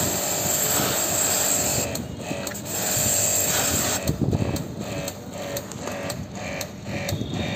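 A high-pressure jet washer running and spraying water onto a split AC's cross-flow blower wheel: a loud steady hiss with a motor hum, dipping briefly about two seconds in. After about four seconds the sound turns into a rhythmic pulsing, about two to three pulses a second.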